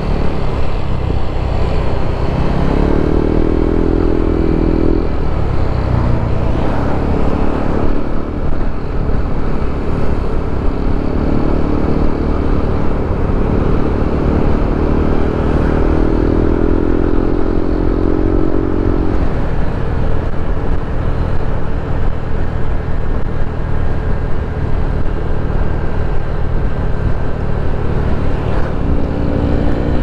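Motorcycle engine running on the move, under a steady rumble of wind and road noise. A clearer, pitched engine note comes up for a few seconds at a time: about three seconds in, through the middle, and near the end.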